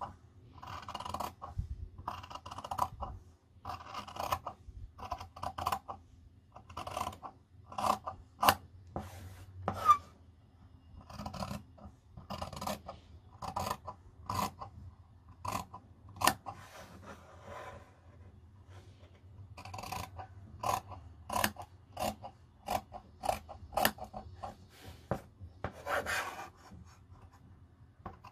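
Scissors cutting cotton fabric along a drawn line: a steady run of crunchy snips, each closing with a sharp click of the blades, about one a second, with a brief pause about two-thirds of the way through.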